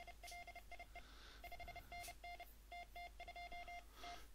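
Morse code (CW) sidetone from a K3NG Arduino keyer: a single steady beep keyed on and off in dots and dashes at an even contest speed. The keyer is sending the contest exchange and thank-you message from the N1MM logging program, and the tone stops about four seconds in.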